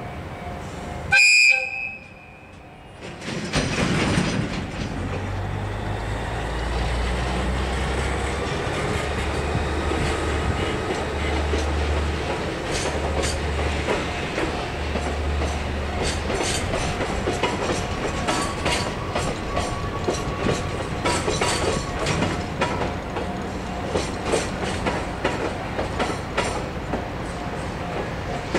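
A diesel freight locomotive sounds its horn in one short blast about a second in. Then its engine rumbles past, and a train of container wagons clatters over a level crossing, the wheels clicking rhythmically over the rail joints.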